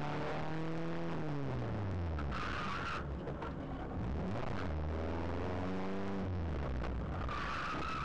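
Renault Clio rally car's engine, its revs falling as the car slows, then rising and falling again through the gears, with the tyres squealing briefly twice as the car is thrown through turns: once about two seconds in and again near the end.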